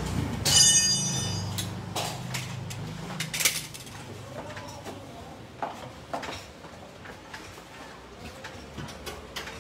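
Steel hand tools and suspension parts clinking and clanking during a front shock absorber replacement, with a ringing metal clank about half a second in, then scattered sharper knocks and lighter clicks.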